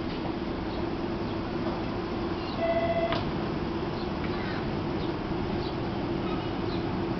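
Hanshin Mukogawa Line electric commuter train running slowly in toward the platform: a steady hum under its running noise, with a brief high tone of about half a second near the middle that ends in a click. Small birds chirp faintly.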